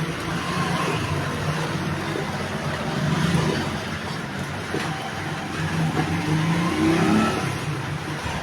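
A motor vehicle's engine running steadily over road noise, with a brief rise in pitch near the end.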